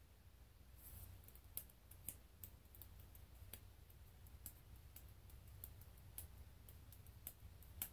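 Faint, irregular small clicks from hands fidgeting with a small object, starting about a second in, over a low steady room hum.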